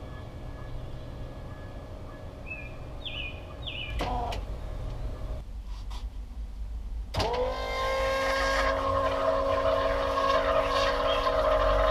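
Bennett V351 12-volt trim tab hydraulic power unit: its electric pump motor starts with a quick rising whine about seven seconds in, then runs steadily, driving the trim tabs while air is purged from the new system. Birds chirp faintly in the first few seconds.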